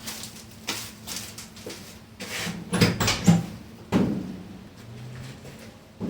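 Scattered knocks, clicks and clatter of objects being handled and set down, with a cluster of louder knocks a little under halfway through.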